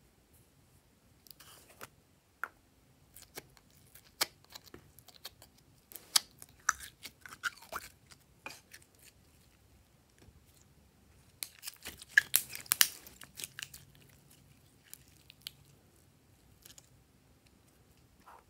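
Plastic carrot-shaped toy capsule and the glossy green slime inside it being handled: scattered sharp clicks and crackles, with a dense flurry of crackling about twelve seconds in.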